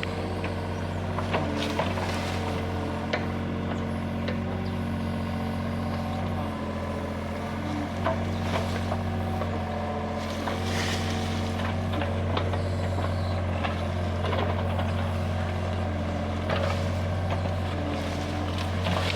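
Hitachi mini excavator's diesel engine running steadily, with sharp clanks and knocks now and then.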